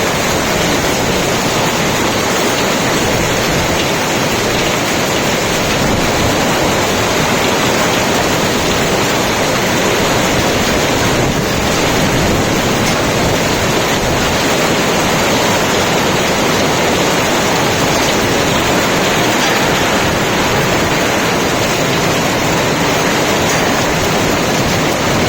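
A hailstorm: hail and heavy rain falling hard in a loud, unbroken wash of noise that holds steady throughout.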